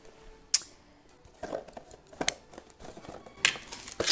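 Small cardboard boxes being handled and cut open at a table: scattered sharp clicks and short scratchy rustles, busier near the end.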